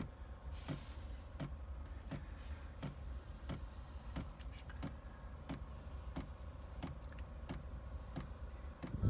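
Chinese 5 kW diesel heater's fuel dosing pump ticking steadily, about three ticks every two seconds, over the low steady hum of the heater's fan, as it pumps fuel during start-up. A louder noise sets in at the very end.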